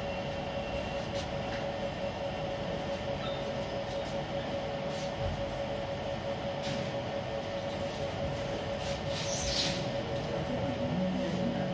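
Steady mechanical hum with one constant mid-pitched tone, over which a few faint short clicks and rustles come and go.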